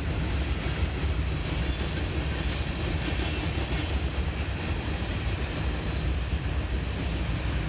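Covered grain hopper cars of a freight train rolling past, a steady low rumble of steel wheels on rail.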